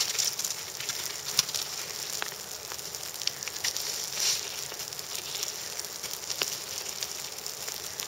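Footsteps crunching in a thin layer of wet snow: a light crackling hiss with scattered sharp clicks at irregular times.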